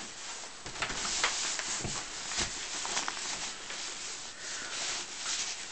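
Winter clothing rustling and rubbing as gloves and outer layers are pulled on, with a scattered series of small clicks and knocks.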